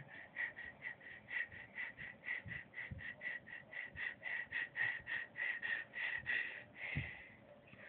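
Dog panting fast and evenly, about four to five breaths a second, with one longer breath near the end.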